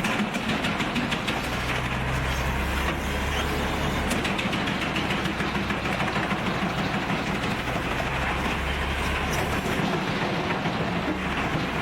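Large wood chipper running under load: a steady engine drone with dense crackling noise from wood being shredded.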